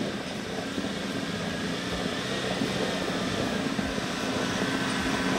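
Off-road vehicle engine running steadily, a continuous drone with a thin high whine over it, growing slightly louder near the end.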